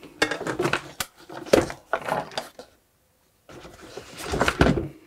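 Handling noise on a workbench as a small screwdriver is fetched: rustling and light knocks, a brief dead gap, then a louder rustling clatter that swells near the end.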